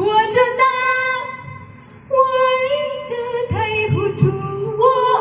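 A young woman singing a song phrase into a handheld microphone, holding long notes that slide up into pitch, in about three phrases with short breaths between.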